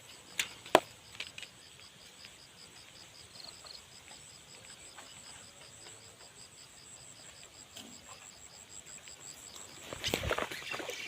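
Insects chirring steadily in a fast pulsing rhythm, with a few sharp clicks in the first second and a half. A louder, noisy burst starts near the end.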